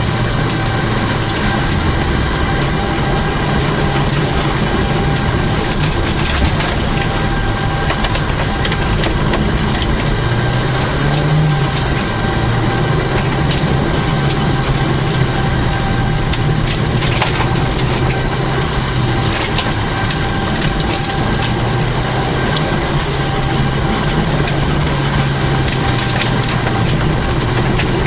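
A 1989 Toyota Celica GT4 rally car driven hard along a special stage: the turbocharged four-cylinder engine's pitch rises and falls as it works, under loud steady tyre and road noise.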